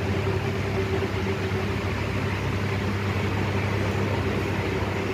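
Steady low machine hum, unchanging, with a few held tones in it.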